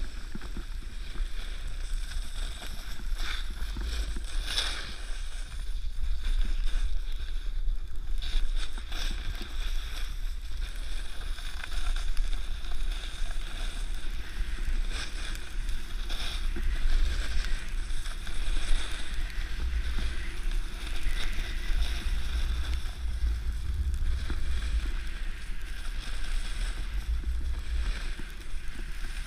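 A snowboard sliding and scraping over snow, a steady hiss with irregular harsher scrapes, over a low wind rumble on the camera's microphone.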